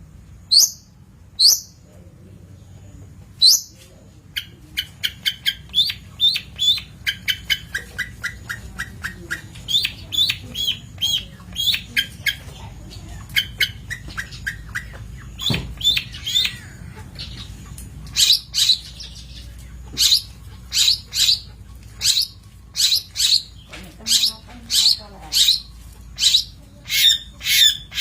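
Long-tailed shrike (cendet) singing: sharp high chirps, then quick runs of notes, giving way about halfway through to loud, harsh calls repeated about once or twice a second.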